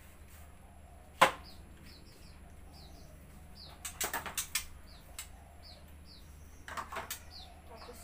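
Short, high, falling chirps from a caged bird, about two a second, with sharp clicks and knocks as the wire bird cage is handled: one loud click about a second in and clusters of clicks around the middle and near the end.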